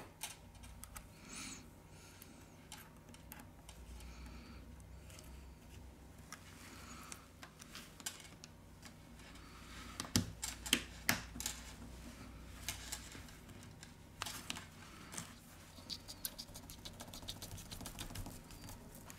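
Faint clicks and taps of small phone parts being handled with metal tweezers and pressed into the phone's metal frame. A few sharper clicks come about ten seconds in, and a run of quick, fine ticks comes later on.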